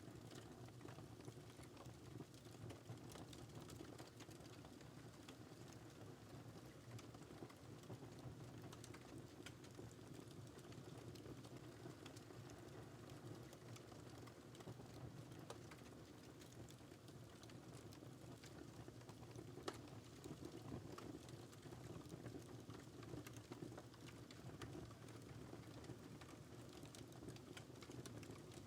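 Faint wood fire crackling in a fireplace: many small, irregular pops and snaps over a steady low rush of the flames.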